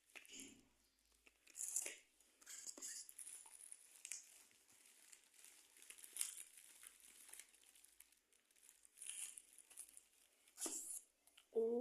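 Parcel packaging crinkling and tearing in irregular, faint bursts as the parcel is opened by hand.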